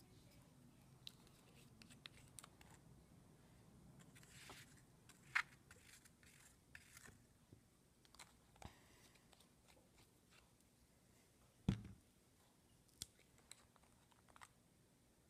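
Near silence with scattered small clicks and taps from objects being handled on a work surface, and one louder knock about twelve seconds in.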